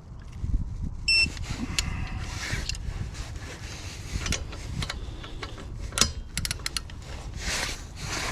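Digital torque wrench giving a short high beep about a second in, the signal that its set torque of 80 foot-pounds has been reached on a lug nut. Around it come clicks and handling noise of the wrench on the wheel, with a sharp click about six seconds in.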